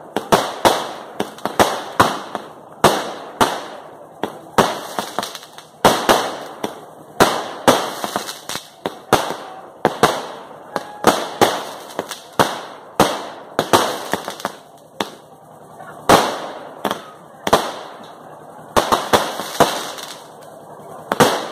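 Temple-festival fireworks display: a rapid, unbroken series of aerial shell bursts and bangs, about two a second, with a noisy wash of fizzing between the bangs.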